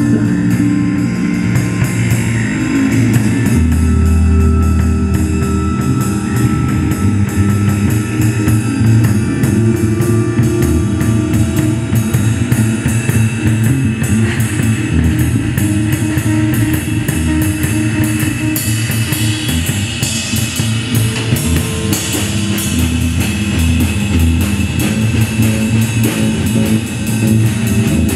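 Live improvised instrumental trio of six-string electric bass, electric guitar and drum kit playing a loud, dense rock-like jam. Deep bass notes sit under the guitar, with constant cymbal and drum hits that grow brighter and busier about two-thirds of the way through.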